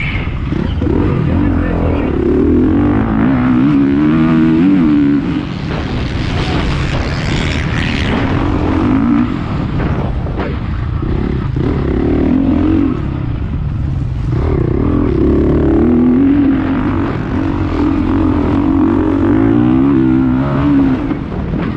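Motocross bike engine being ridden hard, heard close up from on the bike. Its pitch repeatedly climbs and drops as the throttle opens and closes and the gears change.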